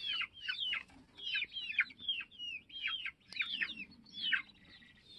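A flock of chickens calling among themselves, a ruckus of many short, high calls that drop in pitch, several a second and overlapping, as the birds bunch up at the coop door to go in to roost.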